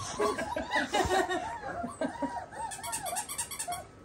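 A person laughing: a run of short notes rising and falling in pitch for about three seconds, dying away near the end.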